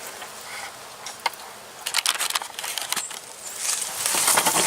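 Handling noise: one sharp click a little over a second in, then a quick cluster of crackling clicks about two seconds in, and rustling near the end.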